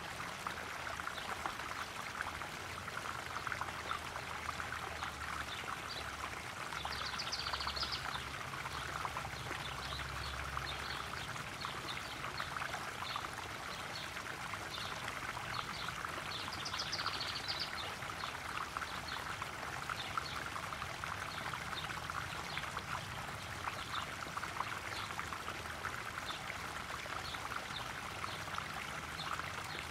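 Small garden pond waterfall splashing and trickling steadily into a koi pond, with many small droplet ticks in the constant running-water sound.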